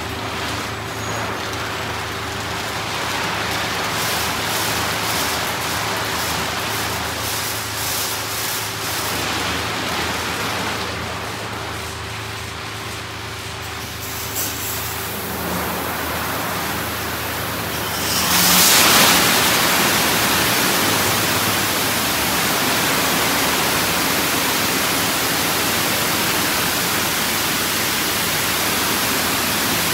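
D&S IQ Express automatic car wash working over a car: a steady rush of spray with a low hum under it, then a sudden surge about two thirds of the way through into a louder, even rushing noise.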